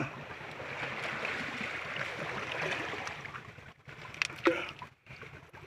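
Stream water running over rocks, a steady rushing sound. Near the end the sound cuts in and out, and two sharp clicks are heard.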